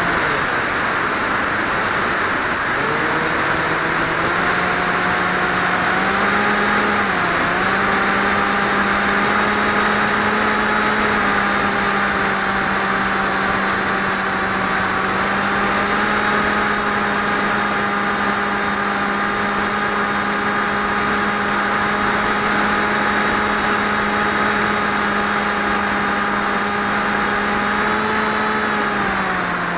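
Swift 2 FPV model aircraft's motor and propeller, recorded onboard, running with a steady drone over rushing air. The pitch drops and climbs back in the first three seconds as the throttle is cut and reopened, dips briefly about seven seconds in, and falls again near the end.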